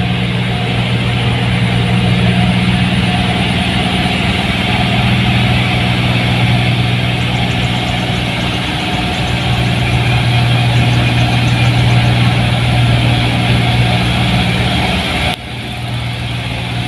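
Two New Holland 1545 combine harvesters running steadily as they cut rice: a loud, even diesel engine drone with a dense mechanical rush over it. The level drops suddenly about fifteen seconds in, then the drone carries on.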